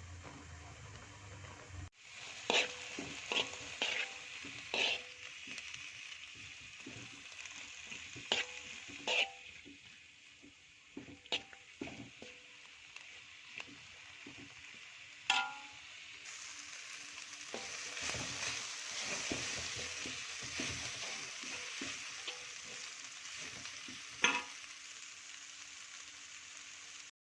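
Food frying in a pan, a steady sizzle, with a spatula knocking and scraping against the pan a dozen or so times while it is stirred. The sizzle grows louder about two-thirds of the way through.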